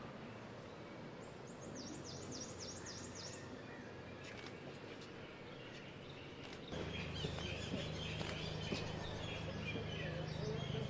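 Outdoor ambience with small birds chirping: a quick run of high, falling chirps a couple of seconds in, and more chirping through the second half. Beneath it is a low steady hum that gets louder about seven seconds in, with a few faint clicks.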